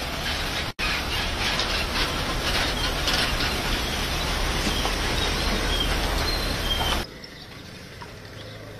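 Steady, loud rushing outdoor noise that drops out for an instant just under a second in and cuts off abruptly about seven seconds in to a quieter background. Faint bird-like chirps are heard in the middle.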